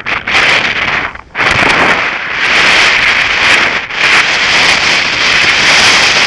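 Snowboard sliding and turning through soft snow: a loud, steady hiss of the board on snow that eases off briefly twice, mixed with wind buffeting the camera microphone.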